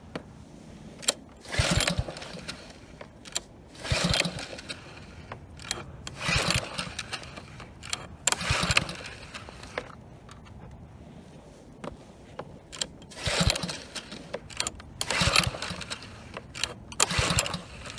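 Recoil starter of a Kohler Courage XT7 173cc OHV engine pulled about seven times, each pull a short cranking burst of under a second that never catches. It is a non-start that the owner puts down to a dirty carburetor.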